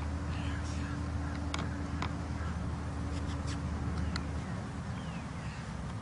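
Steady low engine hum that drops away about two-thirds of the way through, with a few sharp clicks and faint chirps over it.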